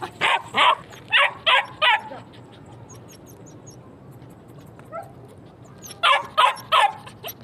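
A dog barking in two quick runs: five barks in the first two seconds, then three more near the end.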